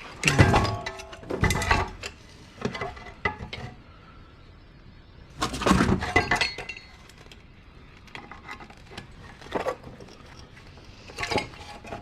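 Hard parts of a centrifuge clinking and clattering in several short bursts as it is taken apart by hand.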